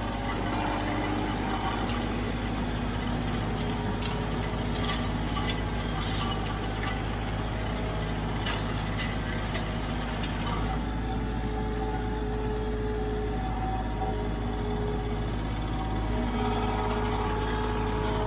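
Kioti CK3510SE tractor's three-cylinder diesel engine running steadily while pulling a flail mower through the field, a constant low drone with faint scattered ticks a few seconds in.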